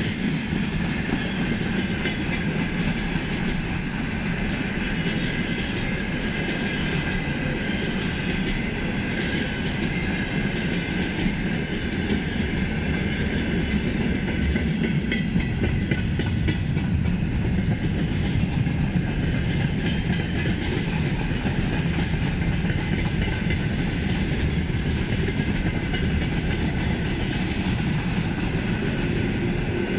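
Wagons of a long mixed freight train rolling steadily past: hopper cars, gondolas, container flats and tank cars, their steel wheels running over the rails.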